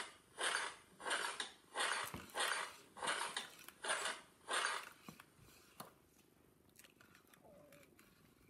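A rhythmic run of about nine hissing puffs, roughly two a second, that stops about five seconds in. Only faint small sounds follow.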